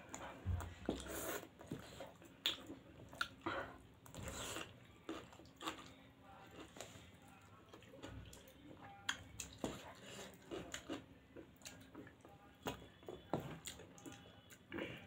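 Close-up eating sounds: two people chewing spicy pasta and paneer momos, with many small, irregular wet mouth clicks and smacks and now and then a spoon scraping the plate.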